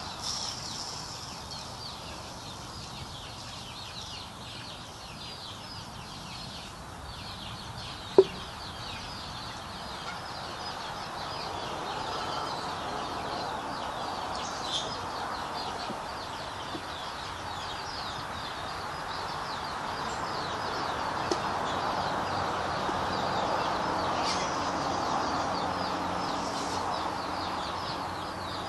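Chickens clucking, growing louder in the second half, over constant high-pitched chirping. One sharp click about eight seconds in.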